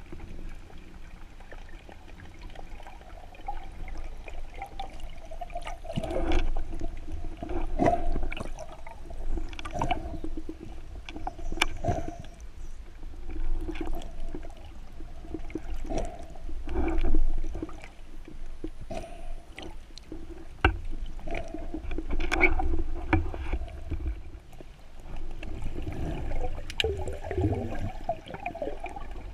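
Water gurgling and sloshing in a spearfisher's sea recording, with a low rumble, recurring murky tones and scattered sharp clicks and knocks.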